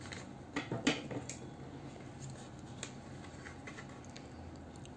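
Scissors cutting a folded sheet of paper: a few short snips in the first second and a half and another near three seconds, with faint paper handling between.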